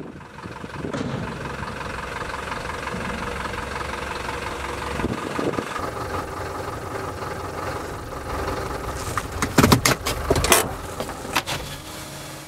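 Diesel engine of a 2015 Hino light truck idling steadily, with a few sharp knocks about nine to eleven seconds in.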